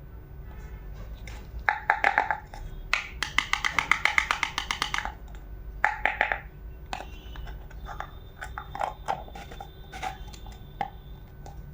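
Small plastic toy kitchen pieces clicking and knocking as they are handled. About three seconds in comes a quick, even run of clicks lasting about two seconds.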